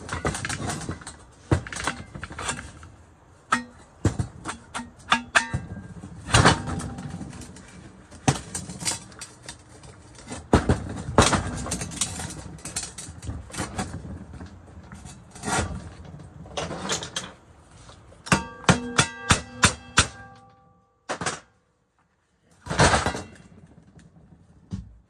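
Metal knocks, taps and scrapes as the perforated steel end cover is worked off a large electric motor's housing by hand. About three-quarters through, a quick run of clinks rings on briefly like struck sheet metal.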